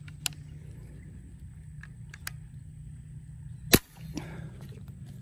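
A single sharp airgun shot about three and a half seconds in, with a few faint clicks before it and a steady low hum underneath.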